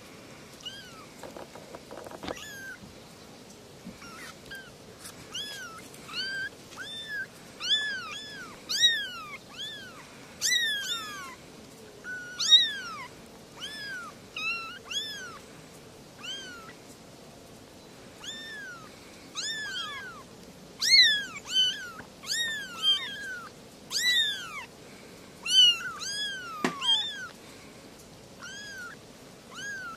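Kittens meowing over and over in short, high-pitched mews that each rise and fall, the calls coming one after another and sometimes overlapping, starting about two seconds in.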